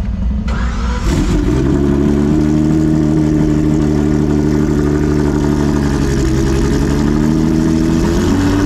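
Homemade 5-litre V12 land speed race engine starting: it catches about a second in and settles into a steady idle, picking up slightly near the end.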